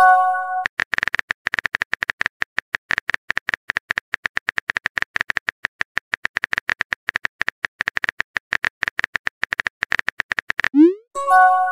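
Rapid, steady keyboard clicks of a simulated phone keyboard as a text message is typed. A short multi-tone chime sounds right at the start. Near the end a quick rising swoosh is followed by the same chime as a message is sent.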